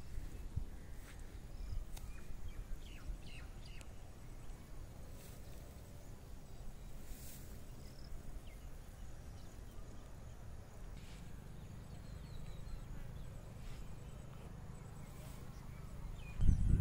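Outdoor ambience of wind rumbling on the phone's microphone, with a few faint bird chirps in the first few seconds. Near the end a much louder gust buffets the microphone.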